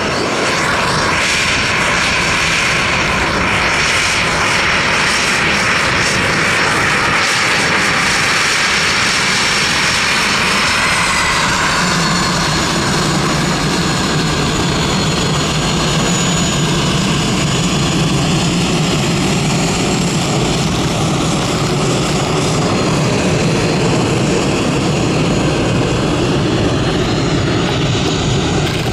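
A fixed-wing aircraft's engines flying past, loud and continuous: a high whine drops in pitch about eleven seconds in as it goes by, followed by a deeper, steady rumble.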